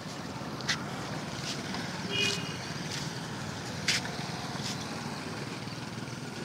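Two dogs scuffling and play-fighting on brick paving: a few sharp clicks and a brief high squeak about two seconds in, over a steady background rumble.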